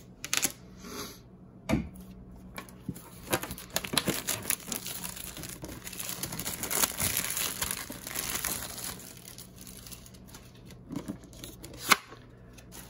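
Plastic shrink-wrap crinkling and tearing as it is peeled off a metal trading-card tin, with dense crackling through the middle stretch. A sharp click comes near the end.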